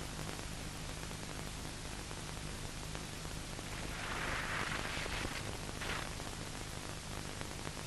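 Steady hiss with a faint low hum from an old 1960s film soundtrack, swelling softly for about a second around four seconds in.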